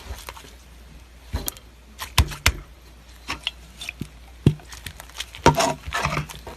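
Slime being squeezed and pulled by hand, making irregular sticky clicks and crackly pops.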